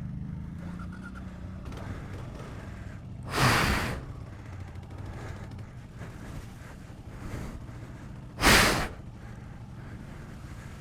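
Two heavy breaths blown out close to a helmet microphone, about five seconds apart, over a motorcycle engine idling low.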